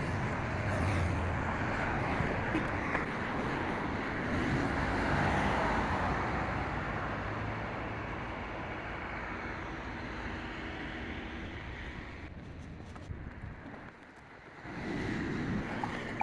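Road traffic: a passing vehicle swells to its loudest about five seconds in and fades away, then another comes up near the end.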